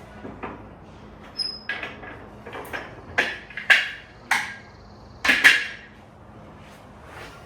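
Clamps being loosened and taken off glued-up wooden parts: a series of sharp knocks and clanks, the loudest from about three to five and a half seconds in, one or two with a brief high ring.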